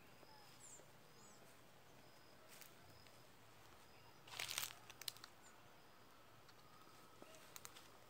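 Faint high, short bird calls repeating over a quiet rural background, with a brief crunching rustle of dry vegetation about four and a half seconds in and a few light clicks after it.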